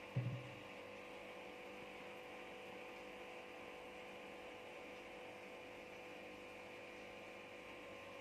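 Low, steady electric hum of an aquarium air pump driving the air stone. A single short low thump comes just after the start.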